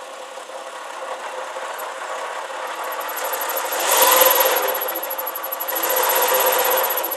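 Porsche Boxster 986 flat-six idling, with a clutch and gearbox-area noise that is subdued at first and swells up twice, about four and six seconds in. The noise goes away with the clutch pedal pressed and comes back as it is released, even though the clutch is recently replaced.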